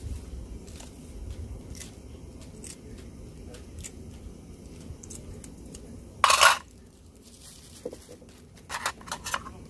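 Kitchen scissors snipping green chili peppers over a pot, with small scattered clicks; a short loud scraping noise about six seconds in and a few sharp clinks near the end.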